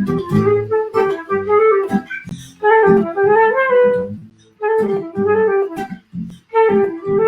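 Music: a melody in short phrases with brief breaks between them, over a low bass line.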